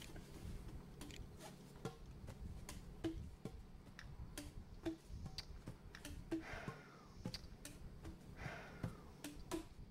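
Faint, irregular computer mouse clicks, one to three a second, over a low steady hum.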